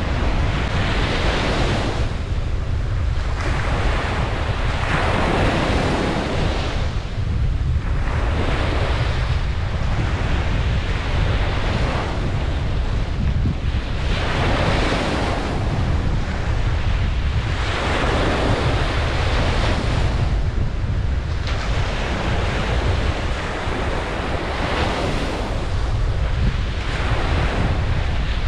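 Ocean waves breaking and washing on a beach, swelling and fading every few seconds, with a steady low rumble that sounds like wind on the microphone.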